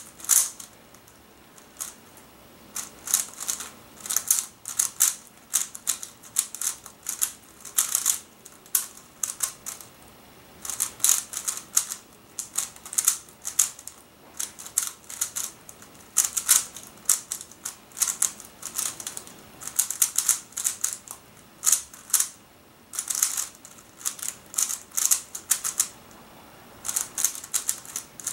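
Shengshou Aurora Megaminx being turned fast in a speedsolve: rapid bursts of plastic clicking and clacking as its faces turn, broken by a few short pauses.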